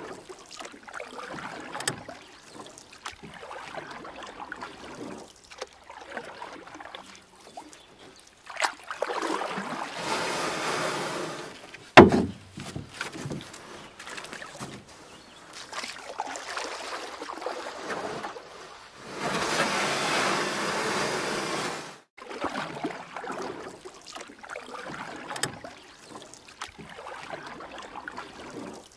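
Kayak paddle strokes: water splashing and trickling off the paddle blades, with louder stretches of splashing twice and a single sharp knock about twelve seconds in.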